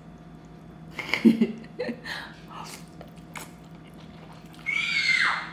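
Rice noodles slurped and chewed, with short wet mouth noises. Near the end comes a high-pitched squeal, falling in pitch.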